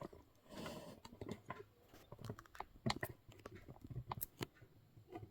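Irregular clicks and light knocks of a hard plastic action figure being handled and set in place, with a few sharper taps about three and four seconds in.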